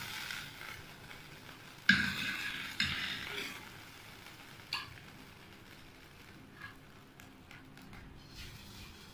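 A spatula scraping and knocking against a metal frying pan and bowl as fried bread slices are lifted out, with two sharp clattering knocks about two seconds in and fainter clicks afterwards.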